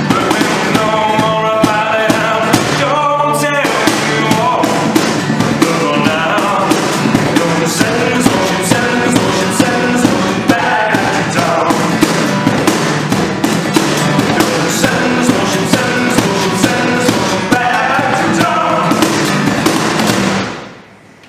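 Live acoustic duo: an acoustic guitar being strummed over the steady beat of a cajón, with a voice singing in places. The song ends near the end and the sound drops away.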